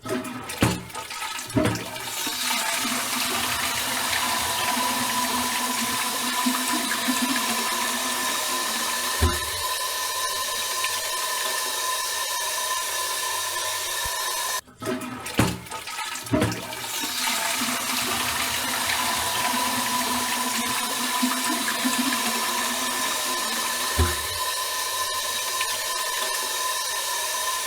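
Toilet flushed twice in a row. Each flush starts with a few clicks from the handle, then water rushes loudly through the bowl. A knock follows, then a steady hiss with a faint whine as the cistern refills. A brief cut about halfway through separates the two flushes.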